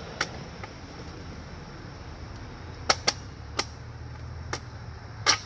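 Sharp clicks and taps, about six spread unevenly, the loudest near the end, as a plastic license plate bracket is handled and pressed into place against a pickup's front bumper.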